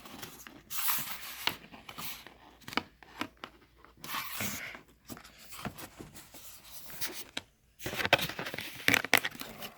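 Laptop box packaging being opened and unwrapped: several bouts of tearing and crinkling, with light clicks and knocks of handling.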